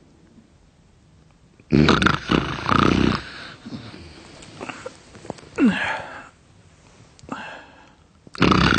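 Loud, rasping human snoring: a long snore about two seconds in, a few shorter snorts and a falling groan, then another long snore near the end. The snorer puts the snoring down to adenoids.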